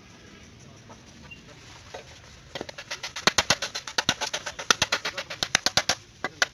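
Hammer tapping a strip of sheet steel in a fast, even run of sharp metallic taps, about eight a second. The run starts after a couple of quiet seconds, stops about six seconds in, and a couple more taps follow near the end.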